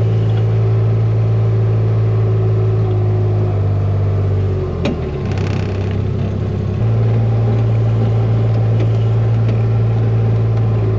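Fiat-Allis 14B crawler dozer's diesel engine running steadily, its pitch shifting a few times, with a sharp click about five seconds in.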